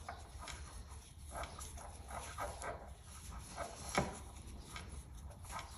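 Faint rustling and light ticks of yarn being worked with a crochet hook, with one sharper click about four seconds in, over a low steady hum.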